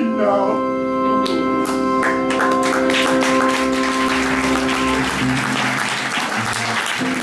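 Music: a long held keyboard chord that ends about five seconds in, with audience applause building from about two seconds in.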